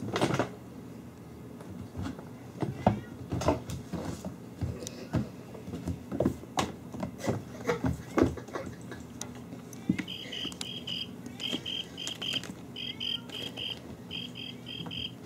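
Kittens scampering and tussling on a hardwood floor: irregular light thumps and knocks of paws and bodies. From about two-thirds of the way in, a high chirp repeats in quick runs of three or four short pulses.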